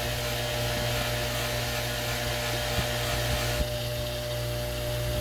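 Bench polishing wheel motor running with a steady hum while a pocket knife blade is buffed on the spinning mop charged with red jeweler's rouge. The hiss of the buffing drops away about three and a half seconds in.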